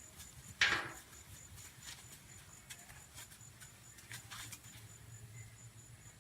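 A single sharp human hiccup, a sudden short 'hic' about half a second in, followed by a few faint clicks.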